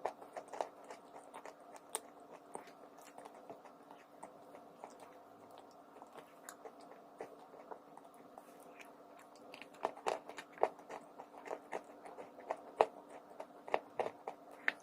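A person biting and chewing crunchy chalk: sharp, irregular crunches in clusters, heavier near the start and again from about ten seconds in, over a steady low hum.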